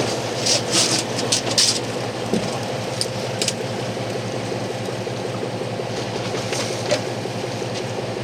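Fishing boat's engine idling with a steady low hum, with a few short bursts of hiss in the first few seconds.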